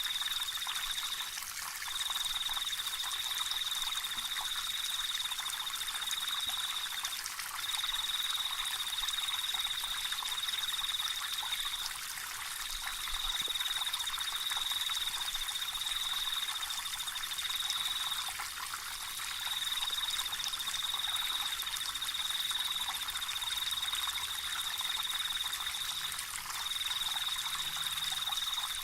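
Water trickling steadily, with a high trilling call repeating in long runs of about four to five seconds separated by short breaks.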